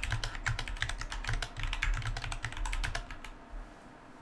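Typing on a computer keyboard: a quick run of keystrokes that stops about three seconds in.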